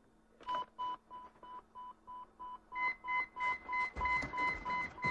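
An electronic telephone ringer beeping in a fast, even series of short tones, about four beeps a second, getting louder about two and a half seconds in.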